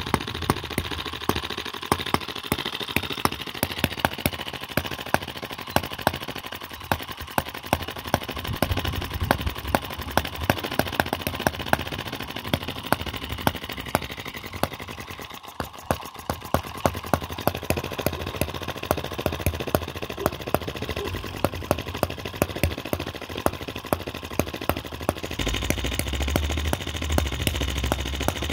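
Microcosm M25 model four-stroke sideshaft hit-and-miss gas engine running, a quick train of sharp pops from its firing and valve gear at an uneven beat. A low rumble joins near the end.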